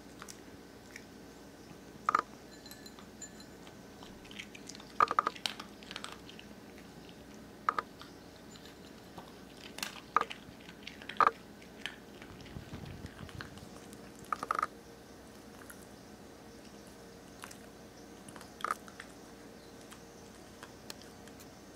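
Norfolk terrier eating dry kibble from a bowl: scattered sharp crunches, some in quick clusters, a few seconds apart with quiet pauses between.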